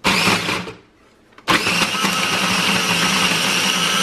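Cuisinart mini food processor motor running, its blade chopping peeled shallots and garlic: a short pulse of under a second, then after a brief pause a steady run of about three seconds that stops near the end.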